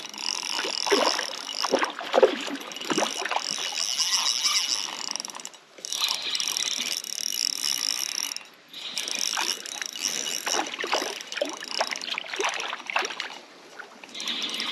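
Spinning reel being cranked to fight a hooked trout, its gears whirring and clicking. The cranking stops briefly twice, about six and eight and a half seconds in.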